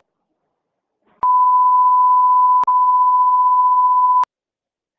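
Censor bleep: a steady, pure beep sounds twice back to back, starting about a second in and stopping near the end, blanking out speech on a recorded phone call.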